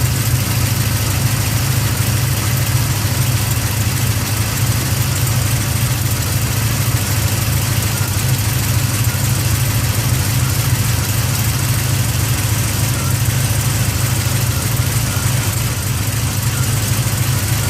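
Chevrolet LS7 7.0-litre V8 fitted with a Livernois Stage 2C camshaft, idling steadily, with the lifter noise the owner is showing.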